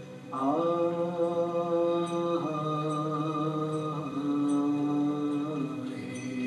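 A voice chanting a Charya song, the Newar Buddhist deity mantra-song, in long held notes that step to a new pitch about every second and a half. A steady low drone runs beneath, with faint, evenly spaced ticks a little under a second apart.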